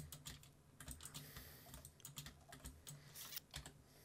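Computer keyboard keys tapping in quick, irregular faint clicks, as shortcuts are typed while working in a design program.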